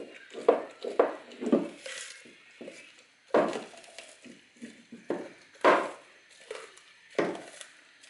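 A dog chewing a frozen raw chicken back, with irregular crunches of frozen meat and bone and quieter gnawing between them.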